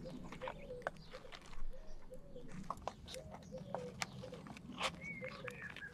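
Scattered light clicks and taps of small hand tools and their case being handled, with birds chirping and calling in the background.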